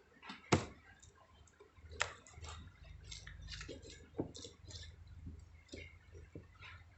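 Small objects being handled: scattered light clicks and taps, the sharpest about half a second in and again around two and four seconds, over a faint low hum.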